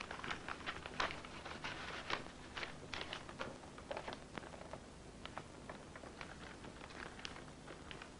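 Paper envelopes being handled and their gummed flaps licked: a run of short, sharp, wet mouth clicks and papery rustles, dense in the first half and thinning out after about five seconds.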